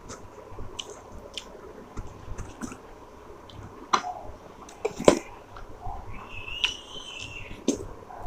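Close-up eating sounds of a person chewing chicken curry: wet squishy chewing, lip smacks and sharp clicks, the loudest a little after four and five seconds in. A brief high wavering squeak comes in the middle of the second half.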